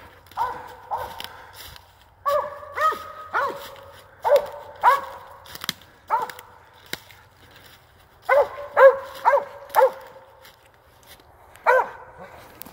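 A treed squirrel dog barking at the base of a tree: repeated short barks in bursts of two to four with pauses between, the tree bark that tells the hunter a squirrel is up that tree.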